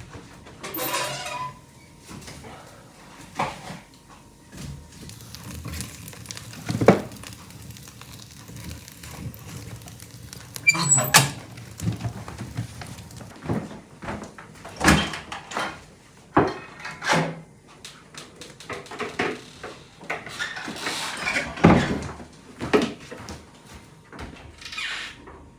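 Irregular knocks and clunks of things being handled and set down in a small room, like doors, cupboards or kitchenware, with a few rustling swishes; the sharpest knock comes about seven seconds in.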